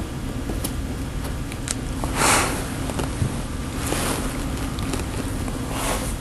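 A man's audible breaths during a silent pause, three of them, the first the loudest, over a steady low rumble of room noise.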